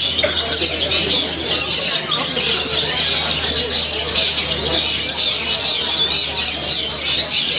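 Dense chorus of many caged songbirds singing at once, a steady mass of fast chirps and trills, among them a long-tailed shrike (cendet). A low steady hum runs underneath.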